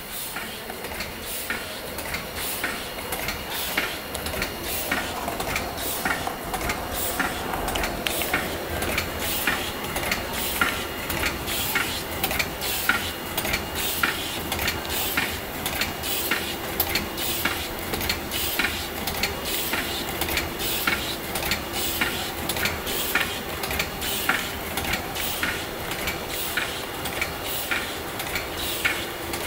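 NF-80 plastic tube filling and sealing machine running: its indexing turntable and stations click and clack in a steady, even rhythm. A low steady hum joins in about halfway through.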